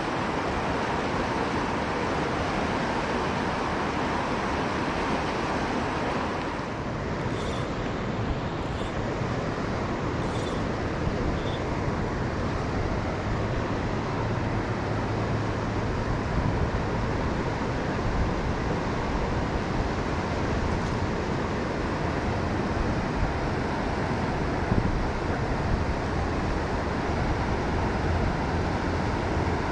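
Steady rushing of river water, an even noise with an unsteady low rumble underneath.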